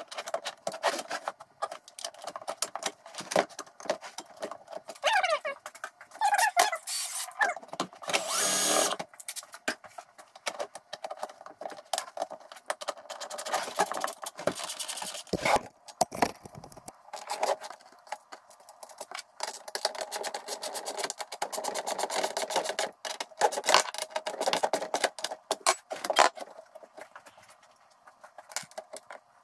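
Thin sheet-metal band being handled and fastened onto a plastic fan shroud: rattling, scraping and clicking, with squeals about five to seven seconds in and a short burst of power-tool noise about nine seconds in.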